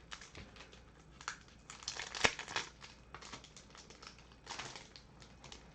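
Trading-card packaging crinkling and rustling, with irregular small clicks and scrapes, as card packs and cards are handled.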